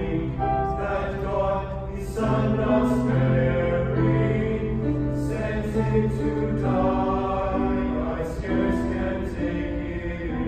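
Mixed-voice high school choir singing, holding chords and moving from note to note together, with sung consonants audible.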